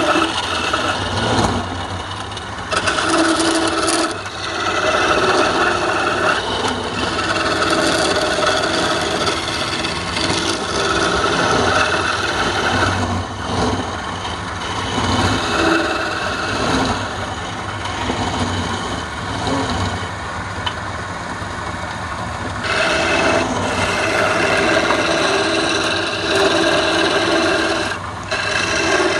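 A wood lathe spinning a reddish hardwood blank while a hand chisel cuts into it. The scraping hiss of the cut swells and eases as the tool bears on the wood, over the lathe's steady hum.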